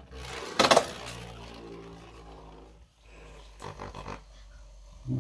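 Beyblade spinning top in a plastic Beyblade stadium: a sharp clack about half a second in as it strikes the stadium, then a steady whirring hum as it spins on the plastic floor, with a few softer knocks near four seconds in.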